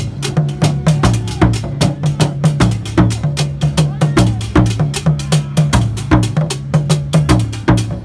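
Fontomfrom royal drum ensemble played with curved sticks: tall drums and a smaller pair of drums beating a fast, steady rhythm of several strokes a second, with a deep drum tone under sharp stick hits.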